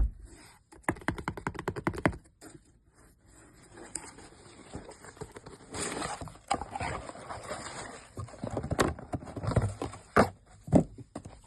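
A Samsung Galaxy S25 Ultra's cardboard retail box being opened and handled: a quick run of ticks about a second in, then rubbing and sliding of cardboard and packaging, with a few sharp knocks near the end.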